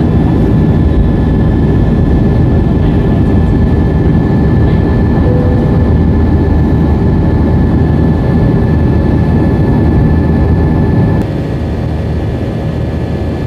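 Airbus A320 jet engines heard from inside the cabin just after takeoff, at climb thrust: a loud, steady roar with a steady high whine above it. About eleven seconds in, the roar drops a step in loudness and the whine stops.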